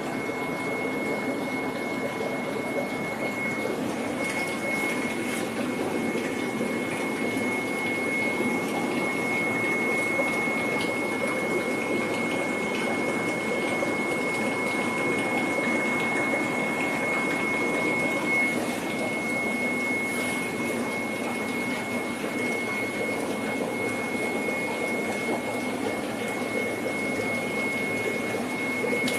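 Fish-farm tank pumps and aeration running: a steady mechanical hum and rush of water, with a constant high-pitched whine over it.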